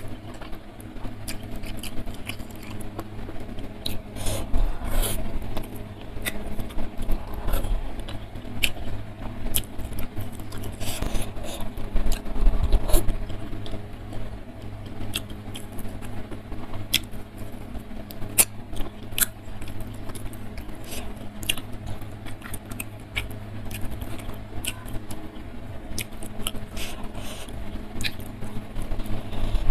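Close-miked eating sounds: chewing, with many small wet clicks and crackles as fingers pick at fish and rice on a plate. A steady low hum runs underneath.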